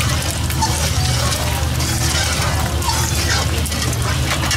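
Street-food stall cooking noises: scattered clinks and knocks of utensils over a steady low hum.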